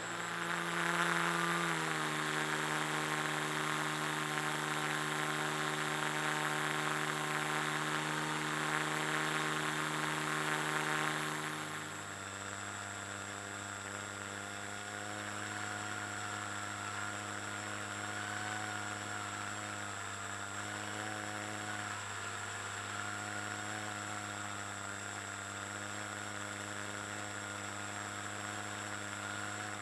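Motor and propeller of a radio-controlled Carl Goldberg glider running steadily, picked up by the camera on board, with a rush of air over it. About twelve seconds in the drone steps down to a lower, quieter pitch as the throttle is eased back, then holds steady.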